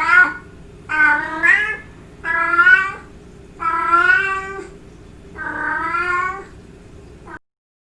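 Domestic cat giving a series of long, drawn-out meows, a courtship-style call, about one every second and a half. The last call ends abruptly about seven seconds in.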